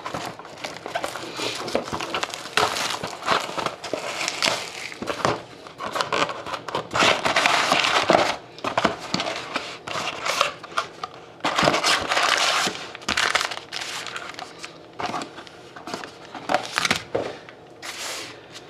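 Plastic wrapping on a sealed box of trading cards and its packs, crinkling and tearing in irregular bursts as it is opened.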